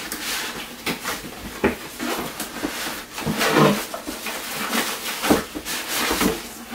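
Cardboard packaging being handled: a cardboard insert scraping and rubbing against the walls of its box as it is worked out, with irregular knocks and rustles.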